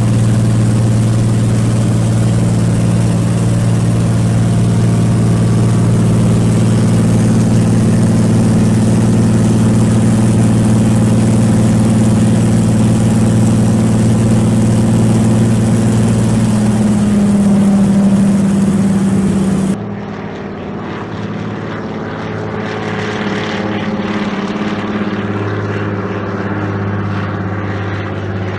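Loud, steady engine drone. Its pitch lifts slightly shortly before an abrupt cut about two-thirds of the way through, after which a quieter engine drone carries on.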